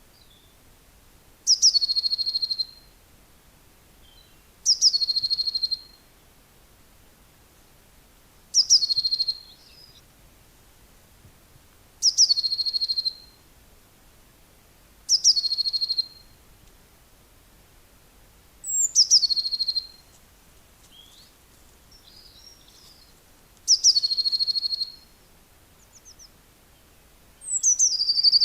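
A songbird repeating the same short song phrase eight times, about every three to four seconds. Each phrase slides down from a high pitch and ends in a short trill on one note.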